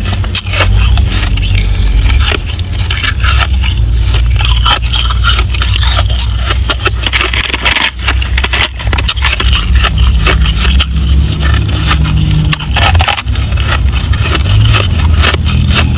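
Ice being chewed close to the microphone: a dense, continuous run of sharp crunches and crackles. Partway through, fingers scrape through crushed ice in a plastic tub.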